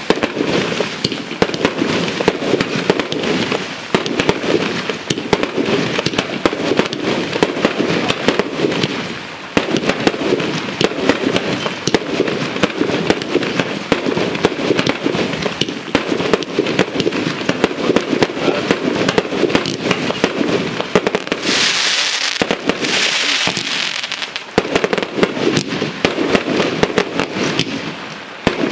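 Espada palm display box, a compound firework cake, firing continuously: a dense stream of launch thumps, bursts and crackling. About three quarters of the way through come two louder hissing surges.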